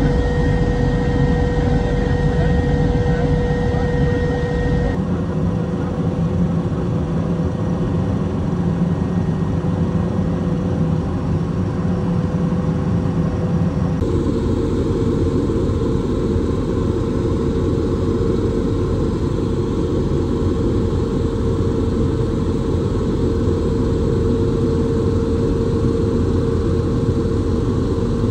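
Helicopter engine and rotor noise heard from aboard the aircraft: a steady drone with a constant high whine. The sound shifts abruptly about five and fourteen seconds in, where the footage cuts between clips.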